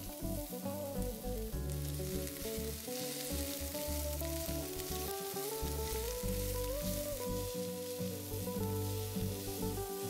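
Chopped onion sizzling in oil in a frying pan, stirred with a spatula, over background music with a melody.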